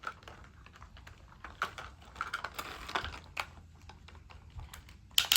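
Small white stones clicking and rattling against a toy bulldozer as they are scooped and loaded, in irregular light clicks, with a louder, denser clatter near the end.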